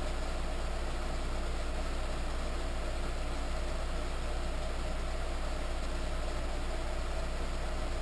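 Harbor Freight 7x10 mini lathe running steadily, its motor and drive giving an unbroken hum.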